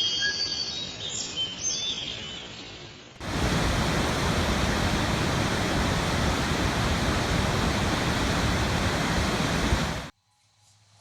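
A waterfall's steady rushing roar, starting abruptly about three seconds in and cutting off suddenly near the end. Before it, birds chirp over a fainter rush of water.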